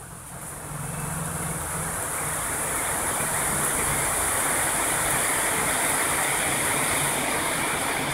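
Water pouring steadily into a plastic bin, building over the first second and then holding, with a low steady hum underneath.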